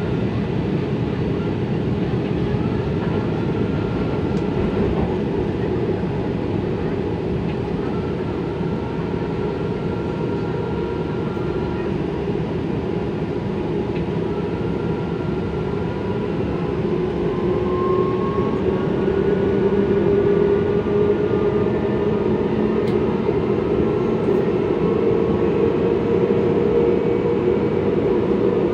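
Elevated metro train running, heard from inside the passenger car: a steady rumble of wheels and running gear with faint whining tones that drift up and down in pitch. It gets somewhat louder about two-thirds of the way through.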